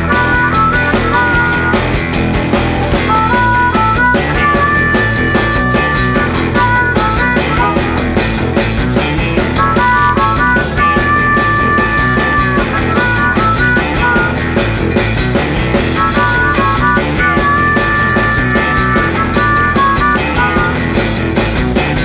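Live rock band playing an instrumental passage: electric guitars, bass and drums, with a high lead melody repeating the same phrase several times.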